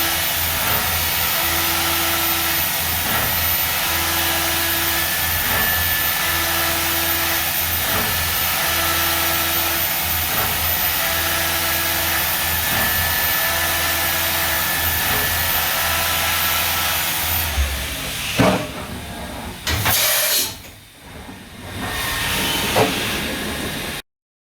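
Mazak Nexus 510 C vertical machining center running with a loud, steady hiss over a low hum, and a short tone repeating about every second and a half. About three quarters of the way through, the running sound changes and a few sharp knocks sound.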